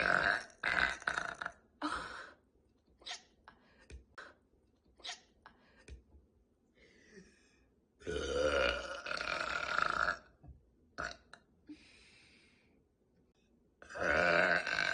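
A woman's long, deep burps: one right at the start, a longer one of about two seconds midway, and another beginning near the end. Between them come short, sharp hiccups, a few at a time.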